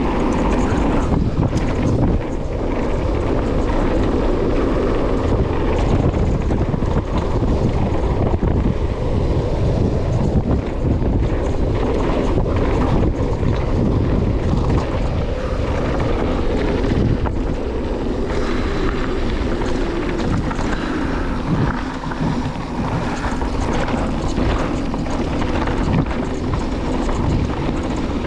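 Mountain bike riding down a dirt trail: steady wind rush over the microphone and the rolling noise of the tyres, with frequent short rattles and knocks as the bike goes over bumps.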